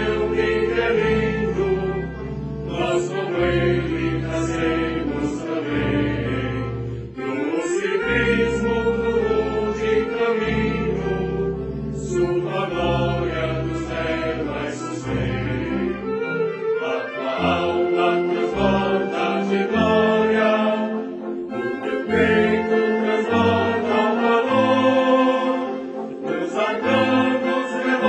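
Choir singing an anthem with orchestral accompaniment. The bass notes are long and held at first, then become shorter and detached about halfway through.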